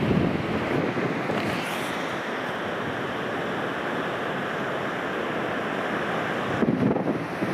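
Strong wind over a rough sea with waves breaking on the shore, as a steady rushing noise. Gusts buffet the microphone at the start and again near the end.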